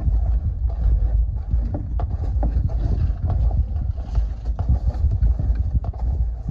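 Heavy low rumble of wind and handling on the microphone, with irregular knocks and taps throughout.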